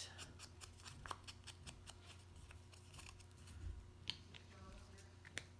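Quick, faint scratchy strokes of a small ink pad rubbed along the edges of a cardstock piece, inking the edges so the piece stands out; the strokes thin out after about three seconds.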